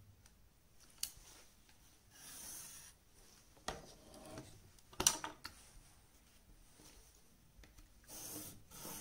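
Clear plastic rulers being slid and set down on paper, with a few sharp clicks as they knock together. Near the end comes a pencil scratching along a ruler's edge as it draws a line.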